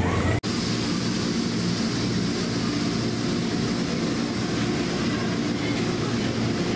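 Steady drone of a stationary 205-series electric commuter train's onboard equipment as it stands at the platform with doors open. The sound breaks off for an instant about half a second in, then the drone resumes.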